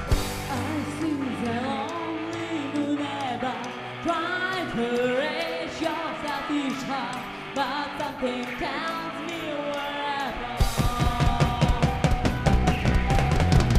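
Live rock band with a female lead singer. Her voice carries over a quieter, thinner accompaniment with little bass, then the full band comes back in loud with bass and drums about ten and a half seconds in.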